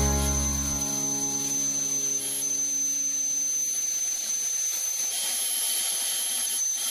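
CNC plasma cutter running: a steady air hiss with a thin high-pitched whine. A fading music chord overlaps it in the first second or so.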